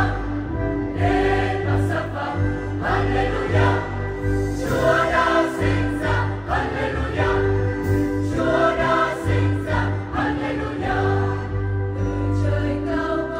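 Church choir singing a Christmas hymn with instrumental accompaniment: several voices holding and moving between notes over a steady bass line.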